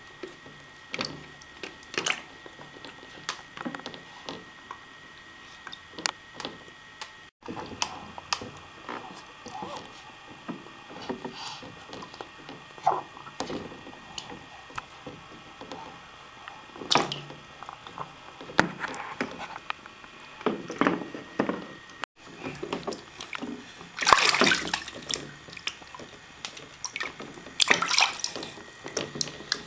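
Bathwater splashing and dripping as a baby plays in a small tub, with scattered small splashes and drips and heavier splashing in the last few seconds.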